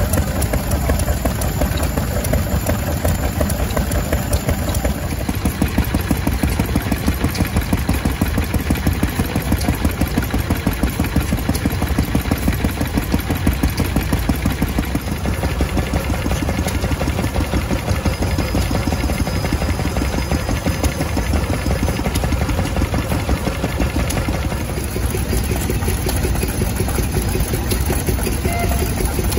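Stationary engine running steadily, with an even, rapid beat.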